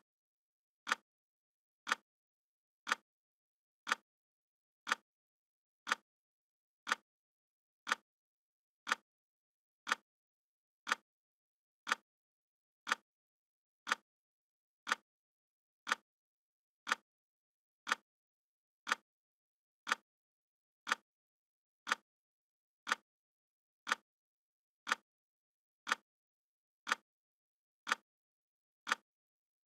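Clock ticking sound effect: one sharp tick each second, evenly spaced, with silence between the ticks.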